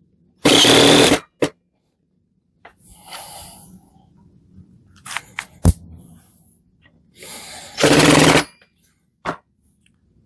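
Parkside PBSA 12 D4 12V cordless drill-driver driving a long screw in two short bursts of about a second each, one near the start and one about eight seconds in, with a few sharp clicks and knocks between them.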